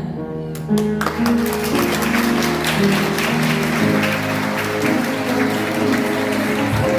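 Instrumental music playing, with a crowd applauding; the clapping starts under a second in and carries on over the music.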